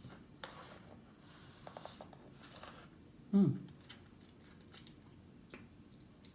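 Eating and handling seafood: scattered small clicks, crackles and rustles of shells and food, with a short falling 'mm' sound from the eater about three and a half seconds in.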